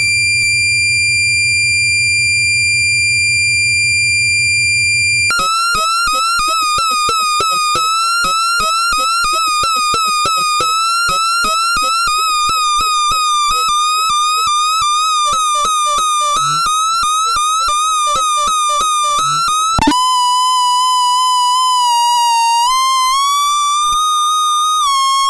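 Electronic feedback tones. A high steady tone over a low hum switches about five seconds in to a lower, wavering tone chopped by a fast train of clicks, then about twenty seconds in to a steady, lower tone that bends up slightly twice.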